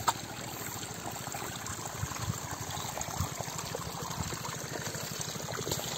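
Light, steady running water with many small drips and ticks.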